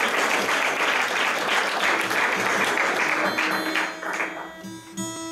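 Audience applauding, dying away about four seconds in. Under the end of it an acoustic guitar rings a few sustained single notes.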